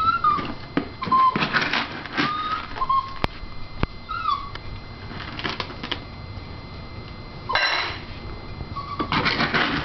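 Excited dog whining in short, high squeaks that rise and fall, repeated several times, waiting for its dinner. Scattered clicks and scuffs run between the whines, with a short rustling burst near the end.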